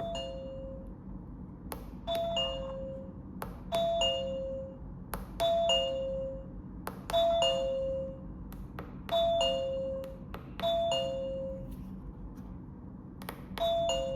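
Two-note ding-dong doorbell chime from the small speaker of a 433 MHz wireless doorbell receiver module (Holtek BM23P105-R41). It repeats about every two seconds, each time a higher note falling to a lower one, and each ring starts with a sharp click.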